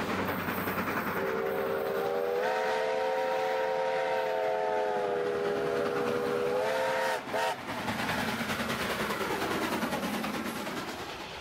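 Steam locomotive whistle: one long blast starting about a second in, stepping up slightly in pitch, then two short toots about seven seconds in. Under it runs the steady noise of the working locomotive and train as it approaches and passes close by.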